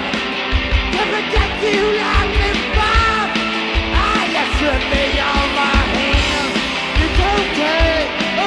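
Garage punk rock band playing: a driving drum beat and electric guitars under shouted, sung vocals.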